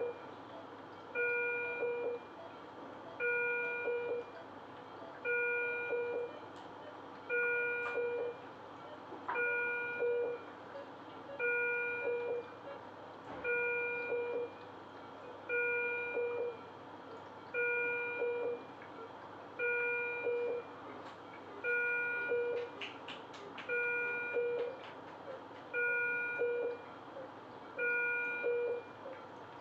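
ICU bedside equipment alarm sounding over and over: a pitched tone about a second long, repeating evenly every two seconds.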